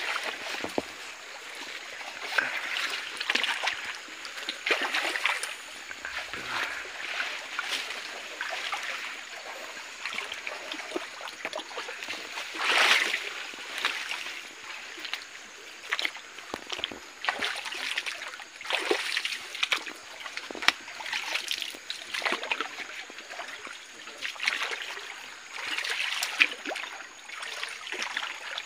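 Feet wading through a shallow stream, a splash every second or two over the steady trickle of flowing water, with one louder splash about halfway through.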